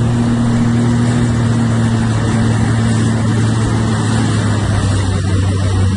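Jet ski engine running at a steady speed, its hum holding one pitch, under an even rushing noise.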